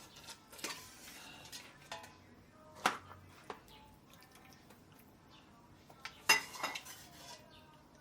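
Dishes and cutlery clinking: a few sharp knocks with a short ring, the loudest about three seconds in and again just past six seconds.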